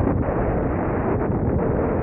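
Steady wind noise on the microphone of a moving car, with the car's engine running underneath it.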